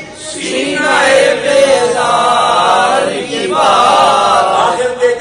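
A man's voice chanting a naat unaccompanied into a microphone in long, drawn-out melodic phrases. There are two phrases, with a short break about three seconds in.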